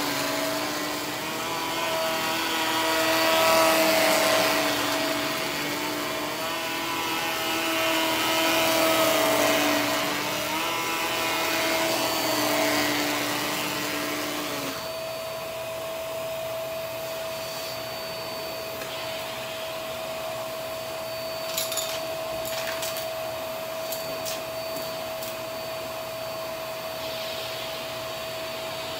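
HART upright vacuum cleaner running over carpet with a steady motor whine. For the first half the sound swells and fades with each push-and-pull stroke; after that it runs steadier and a little quieter, with a few light clicks just past the middle.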